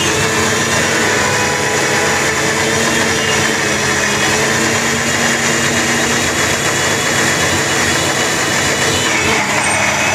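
Electric mixer grinder running steadily at speed, its blades grinding boiled red chillies and a little water into a fine chilli paste.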